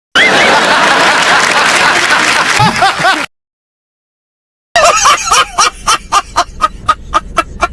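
Two laugh sound effects separated by about a second and a half of dead silence. The first is a dense, loud stretch of laughter; the second, starting near the middle, is a rhythmic cackling laugh of about four short pulses a second that gets quieter toward the end.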